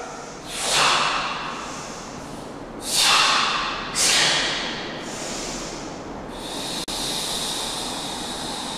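Karateka's forceful hissing exhalations timed to kata techniques: three sharp breaths about half a second, three and four seconds in, each trailing off in the hall's echo, then a longer, steadier hiss from about six seconds in.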